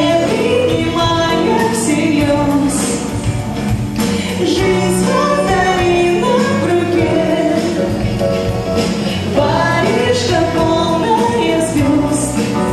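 Two women singing a pop song together into microphones, backed by a live keyboard and drum kit with cymbal hits.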